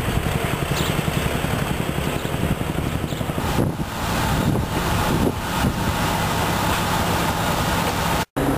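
Outdoor street ambience with a steady rumble of traffic and engines. From about halfway a low steady hum of an idling engine joins it, and the sound drops out for an instant near the end.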